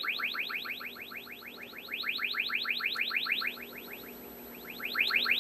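Television set's speaker reproducing an injected test signal as a rapid train of rising chirps, about eight a second, whose volume wavers, dropping and jumping back up. The unsteady level points to a dirty volume control in the audio stage.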